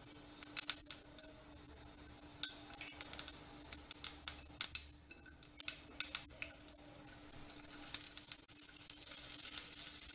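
Fennel seeds sizzling and crackling in a little hot oil in a nonstick frying pan, with sharp clicks and taps as garlic, ginger, coconut and sliced onion are tipped in from a steel plate. The sizzle grows denser and louder near the end, once the onion is in.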